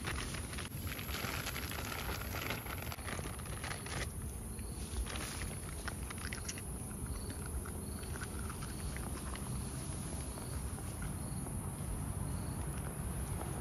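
Insects in grassland: a steady high-pitched insect drone, with a short chirp repeating about every three-quarters of a second through the second half, over a low rumble with scattered small clicks and rustles.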